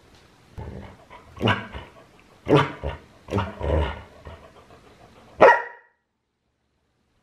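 Belgian Tervuren dog "talking": a string of about six short barking vocalizations, the last and loudest about five and a half seconds in.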